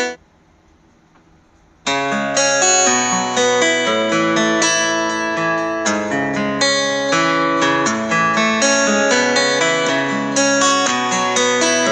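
Background instrumental music of plucked strings. It cuts out for about the first two seconds, then starts again.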